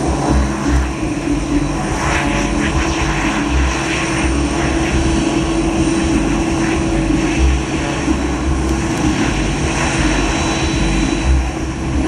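A Boeing 767-300ER freighter's twin turbofan engines run steadily as it taxis, with a constant hum and a thin high whine over an uneven low rumble.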